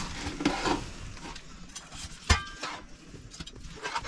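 Knife carving a grilled steak on a cutting board, with scraping and handling noises and a sharp ringing clink about two seconds in.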